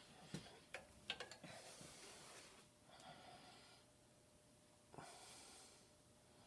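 Near silence, with a few faint clicks and small handling noises in the first second or two.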